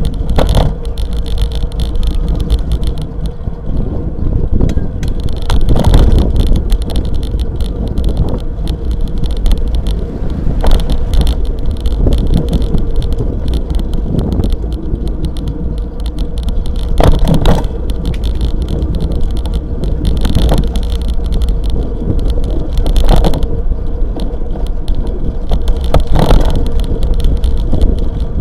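Riding noise of a bicycle picked up by a handlebar-mounted action camera: a steady low rumble from road vibration and wind, a faint steady hum, and a sharp rattling knock every few seconds.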